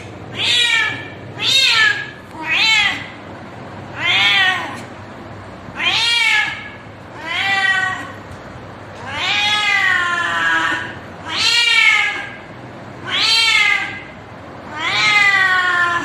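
Cat yowling a mating call: about ten drawn-out meows, each rising then falling in pitch, a second or two apart, the later ones longer.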